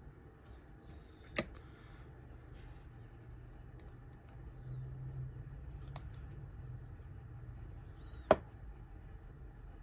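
Low steady hum of room tone with two sharp taps about seven seconds apart, the second the louder, and a fainter tap between them: small knocks of painting tools on the work surface.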